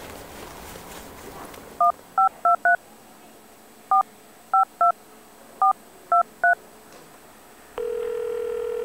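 Smartphone keypad tones as a number is dialled: ten short two-note beeps in groups of four, three and three. About eight seconds in, the ringing tone of the outgoing call begins and holds steady.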